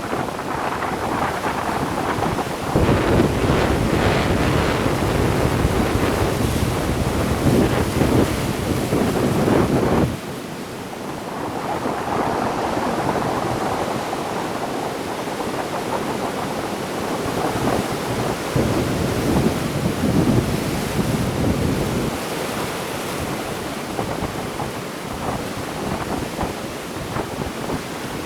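Sea waves washing on the shore, with wind buffeting the microphone. The low wind rumble is heavy for the first ten seconds, then drops off suddenly and the surf goes on more lightly.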